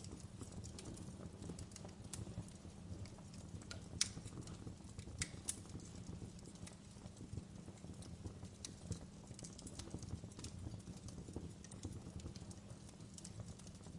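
Wood fire crackling: irregular sharp pops and snaps over a low steady rumble, the loudest pops about four and five and a half seconds in.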